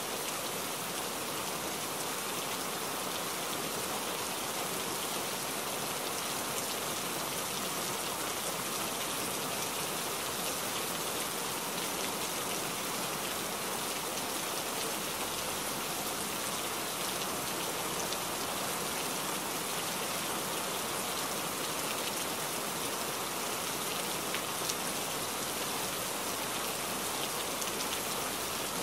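Steady rain hitting a truck's windshield and cab, heard as an even hiss scattered with faint drop ticks.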